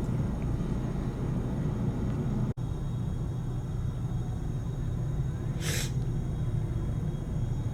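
Steady low rumble of a jet airliner's engines, with a short burst of hiss a little past the middle and a momentary dropout a few seconds in.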